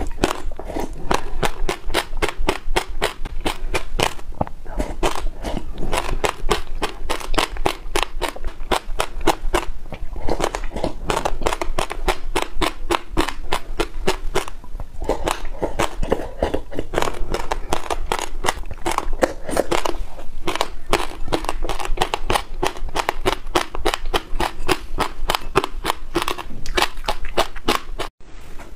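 Passionfruit seeds in yogurt being chewed and crunched: a fast run of sharp cracks and pops, several a second.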